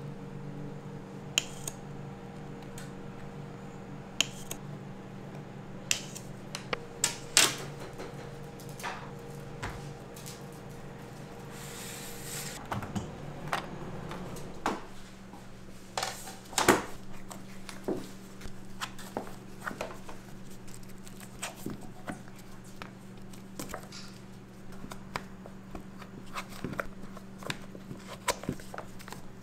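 Kitchen utensils and containers handled during dessert making: scattered clicks and taps over a steady low machine hum, with a brief hiss about twelve seconds in.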